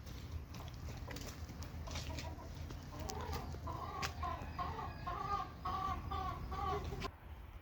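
Chickens clucking: a run of short, repeated calls over the second half, over a steady low rumble, cutting off suddenly near the end.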